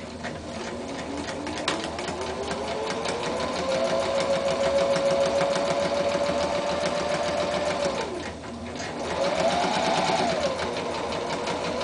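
Electric sewing machine stitching a straight-stitch seam through two layers of cotton: the motor whine rises as it speeds up over the first few seconds, then holds steady under a rapid needle clatter. It stops briefly about eight seconds in, then runs again.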